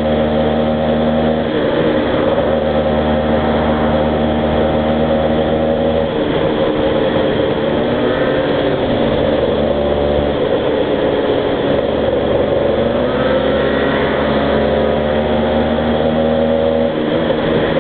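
Two-stroke engines of a Honda NSR 125R motorcycle and a Yamaha Aerox scooter running on the move, their pitch rising and falling with the throttle.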